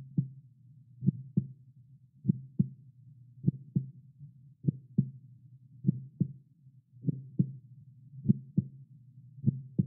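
Heartbeat: a slow, steady double thump (lub-dub), nine beats about 1.2 seconds apart.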